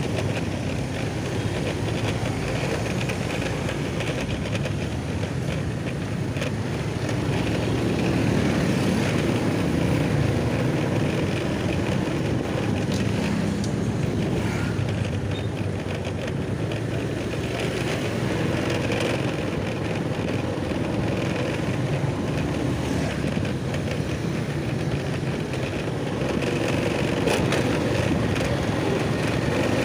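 Steady running of a vehicle engine with a continuous rush of road and wind noise.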